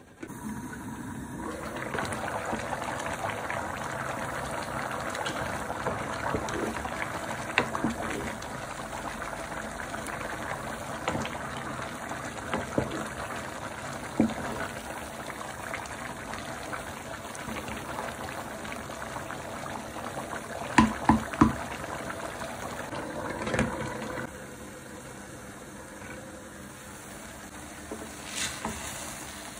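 Pulao rice and stock bubbling at a boil in a pan, a steady watery hiss, with scattered sharp knocks of utensils against the pan, the loudest a quick cluster about two-thirds of the way through. The bubbling drops lower near the end.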